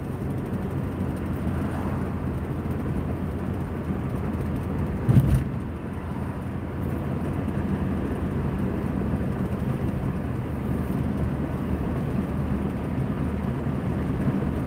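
Steady road and engine noise inside a moving car, with a brief low thump about five seconds in.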